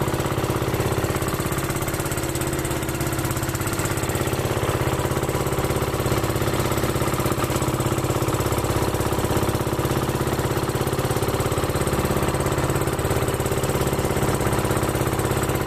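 Boat engine running steadily at an even speed, a rapid pulsing chug.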